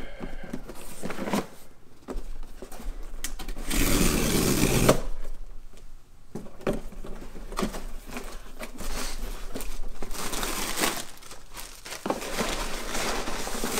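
Cardboard box and plastic packaging being opened and handled: irregular crinkling and tearing with scattered knocks, loudest for about a second around four seconds in.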